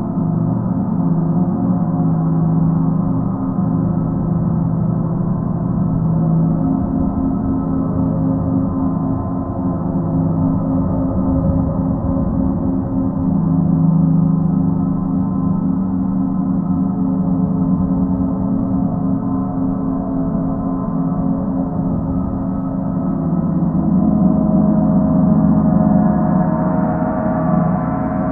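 Paiste planetary gongs ringing in a steady, sustained wash of many overlapping tones, swelling slightly near the end.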